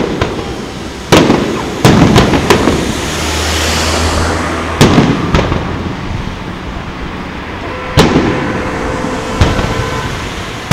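Aerial fireworks shells bursting: about seven sharp booms at uneven gaps, each trailing off in a long rolling echo.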